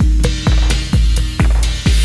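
Background electronic music with a steady, heavy kick-drum beat, about two beats a second, over a deep bass line.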